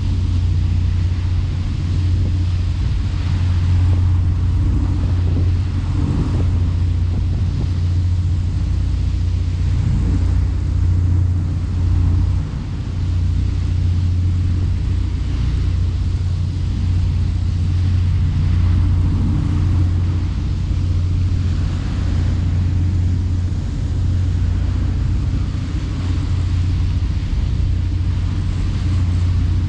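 Boat engine running steadily with a low drone, under a steady rushing hiss.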